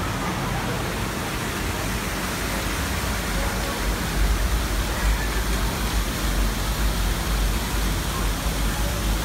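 Steady rush of falling and splashing water from water-park play fountains and spouts. A low rumble comes in from about four seconds in.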